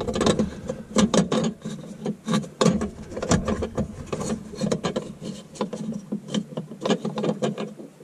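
Fingers tapping, rubbing and clicking on the hard plastic of a Thetford cassette toilet's housing, right by the microphone, as the small float 'full' switch is prodded; the clicks come irregularly, several a second, over a steady low hum.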